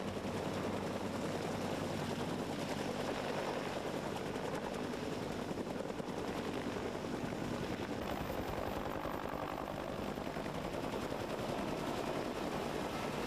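Military helicopter running, its rotor blades chopping in a fast, steady beat over a low engine hum.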